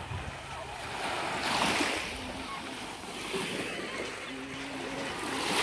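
Gentle surf: small waves washing up onto a sandy beach, the wash swelling about two seconds in and again at the end.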